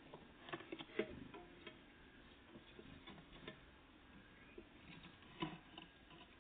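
Scattered light taps and clicks, a cluster about half a second to a second in and another near the end: small birds, great tits and blue tits, pecking and landing at a feeder.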